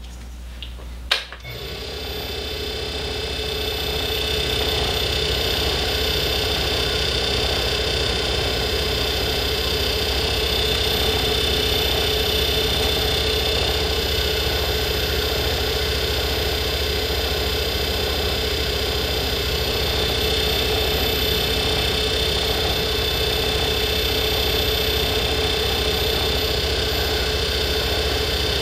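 Small lathe switched on with a click about a second in, its motor whine rising over a few seconds and then running steadily, while grey 600-grit abrasive paper is held against a nickel silver male ferrule spinning in the chuck to size it for a slide fit.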